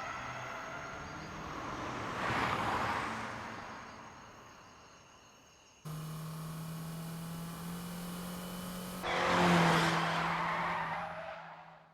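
Car sound effects: an engine running with tyre skid noise that swells to a peak about two and a half seconds in and fades away. After a sudden cut, a steady engine drone is followed about nine seconds in by a second, louder swell of skidding tyres that dies away near the end.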